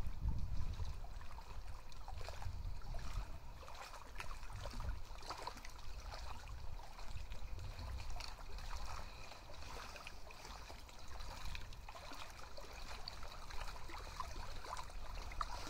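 Small wavelets of lake water lapping and trickling among stones in the shallows: an irregular run of small splashes and clicks over a low rumble that is strongest in the first second.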